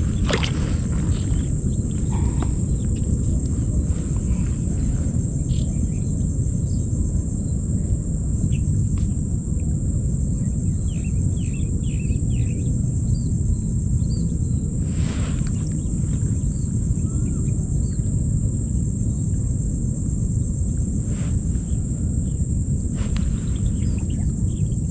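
Outdoor pond-side ambience: a steady low rumble under a constant high-pitched insect whine, with scattered faint chirps and a few light clicks.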